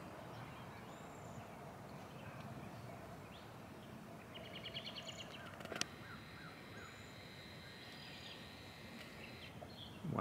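Faint open-air ambience with small birds calling: a rapid trill about four seconds in, followed by a few short chirps. A single sharp click sounds near six seconds.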